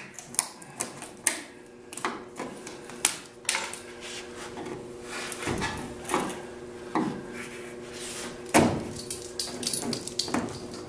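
Gasket scraper scraping and prying along the edge of a fiberglass car door skin: irregular scrapes and sharp clicks, with two heavier knocks about halfway through and near the end.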